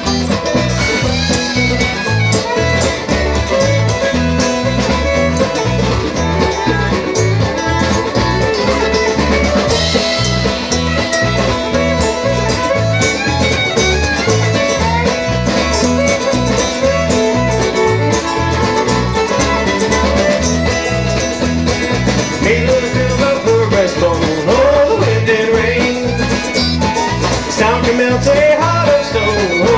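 Live bluegrass band playing an instrumental break: banjo, acoustic guitar and fiddle over a steady low beat, with the fiddle's melody standing out more in the second half.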